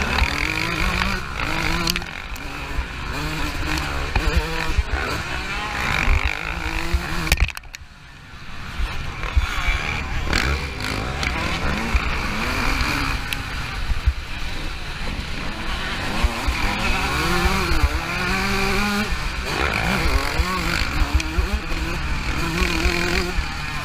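Motocross bike engine revving hard, pitch climbing and falling with throttle and gear changes, heard from a camera on the rider, with knocks from the rough track. About seven and a half seconds in the throttle shuts off sharply and it goes quieter for about a second before it builds again.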